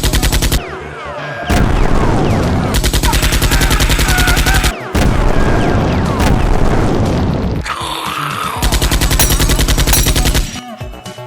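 Rapid automatic-gunfire sound effects in several long bursts of fast, evenly spaced shots with brief pauses between them, over background music.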